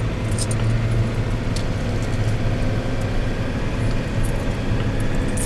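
Engine and road noise inside a moving route minibus: a steady low drone, with a few light clicks and rattles from the cabin.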